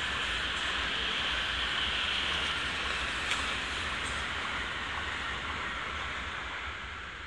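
Tokaido Shinkansen high-speed train passing on an elevated viaduct, a steady rushing noise that swells to its loudest about two seconds in and then slowly fades as the train moves away.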